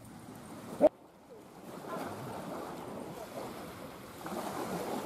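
Outdoor wind and small waves on a sandy shore, a steady noise that grows a little louder near the end, after a short sharp sound just under a second in.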